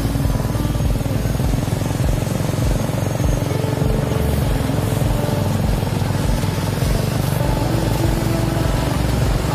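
Diesel engine of a log-laden Mitsubishi Fuso Canter truck running steadily as it creeps over a rough, muddy road, a low rumble with a wide hiss of noise over it.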